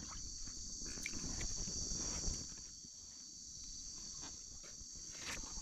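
A steady, high-pitched chorus of insects, over a low rumble.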